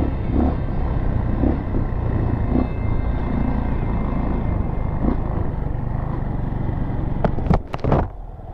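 Motorcycle engine running steadily as the bike rides a dirt trail, with a low rumble of wind and road noise. A few sharp knocks come near the end, followed by a brief drop in the sound.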